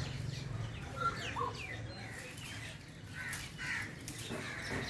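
Rufous treepie calling: a string of short, harsh crow-like calls, several of them sliding down in pitch.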